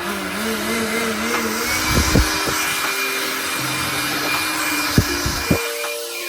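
A power tool running with a steady, even whirring hiss that starts suddenly, with a few short knocks from the work about two and five seconds in.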